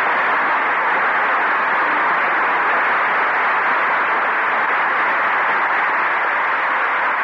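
Studio audience applauding steadily at the close of a live broadcast, heard through the narrow, dull sound of an old radio transcription.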